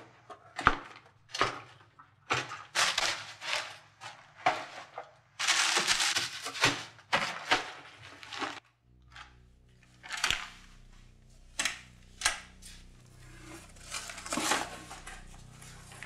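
Kitchen items being handled and packed on a counter: a string of sharp knocks, clatters and rustles. A steady low hum comes in about halfway.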